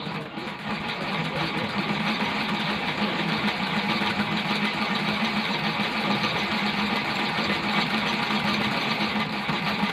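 Washing machine electric motor running steadily with a hum and whir, coming up to speed over the first couple of seconds.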